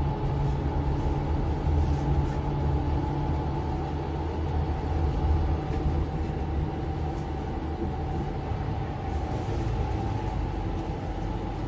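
Inside a Mercedes-Benz Citaro C2 LE city bus under way: the engine and drivetrain run steadily under heavy road rumble, with a steady high whine over them.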